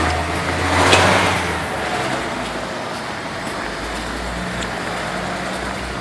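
A motor vehicle drives past on the street: its noise swells to a peak about a second in, then fades. A steady low engine rumble of traffic continues throughout.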